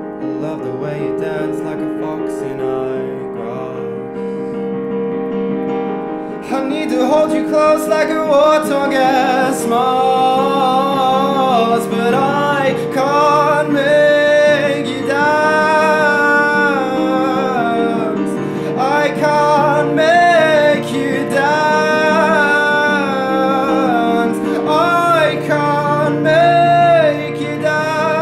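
Piano chords playing alone, joined about six and a half seconds in by a man singing a flowing melody over them.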